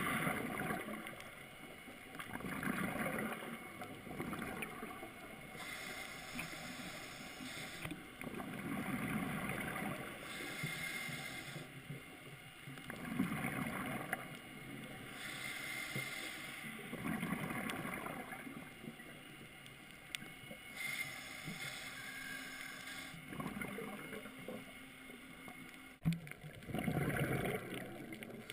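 Scuba diver breathing through a regulator underwater: a repeating cycle of inhale hiss and gurgling rushes of exhaled bubbles, swelling every few seconds, with a single sharp click near the end.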